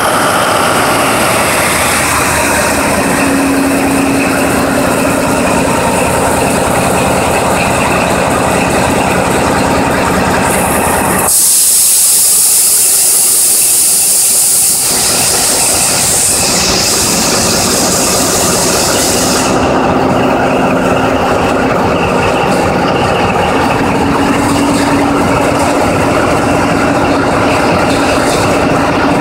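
Caterpillar diesel engine running steadily in a locomotive. About eleven seconds in, a loud hiss blows for roughly four seconds, drowning out the engine.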